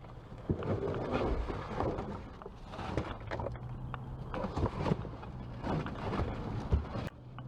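Rummaging through a dumpster: irregular rustling, knocks and clatters as bags and boxes of discarded food are moved and handled.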